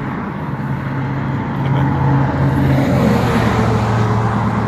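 Motor vehicle running with road noise, a low steady engine hum that grows louder about two seconds in.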